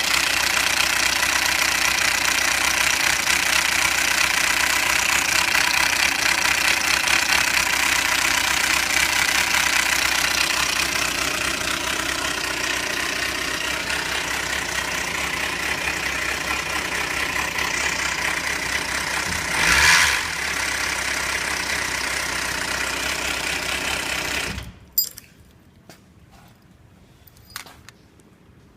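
Kawasaki Xanthus motorcycle's inline-four engine running at idle, recorded for an abnormal engine noise, with one brief louder burst about twenty seconds in. The engine is then shut off suddenly, leaving a few faint clicks.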